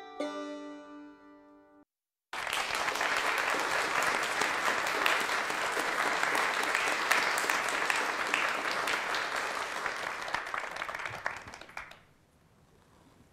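Plucked-string music fades out at the end of a song. After a brief silence, an audience applauds for about ten seconds, and the applause dies away near the end.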